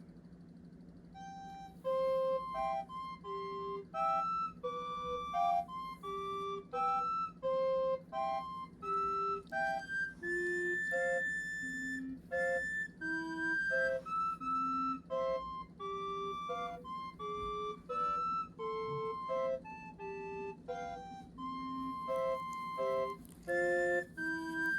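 Background music: a light melody of short separate notes on a flute-like instrument over a steady low drone, starting about a second in.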